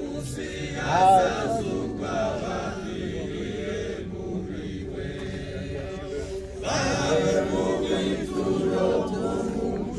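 A group of mourners singing together without instruments in long held notes, with louder voices swelling about a second in and again from about seven seconds.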